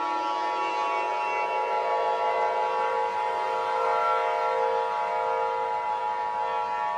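Emergency Alert System attention signal, the steady two-tone 853 and 960 Hz chord, sounding over a warning siren that rises in pitch during the first second and then holds a steady chord.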